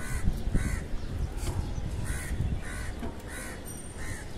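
A crow cawing about six times, the caws coming in pairs, over a steady low background rumble.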